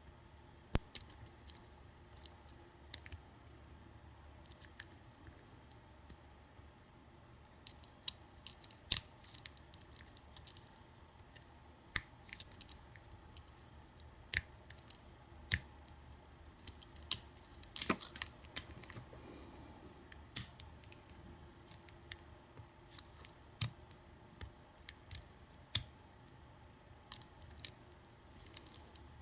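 Lock pick and tension wrench single-pin picking a pin-tumbler lock: irregular small metallic clicks and ticks as the pins are lifted, with a denser run of clicks a little past the middle.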